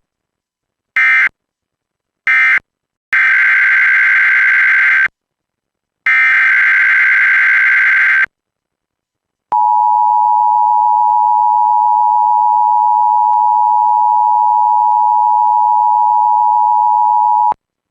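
Emergency Alert System tones. Three short SAME digital data bursts, the end-of-message code closing the previous alert, are followed by two longer SAME header bursts. Then the two-tone EAS attention signal, a steady dual tone near 900 Hz, sounds for about eight seconds and cuts off sharply.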